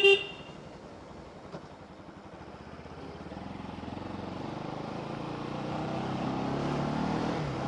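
Motorcycle engine and road noise as the bike rides along, growing louder over the second half as it picks up speed. A short horn beep sounds right at the start.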